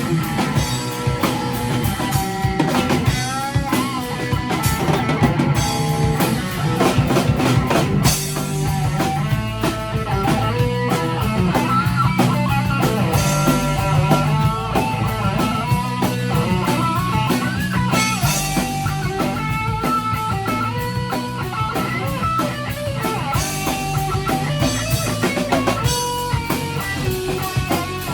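Rock band playing an instrumental break with no vocals: guitar carrying a melody over drum kit and a steady low part.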